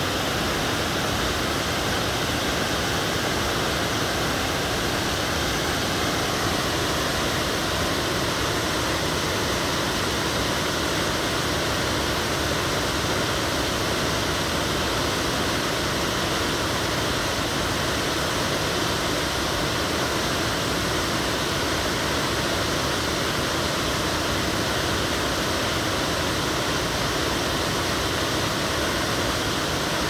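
Waterfall: a steady rush of white water pouring over a drop in a creek, unchanging throughout.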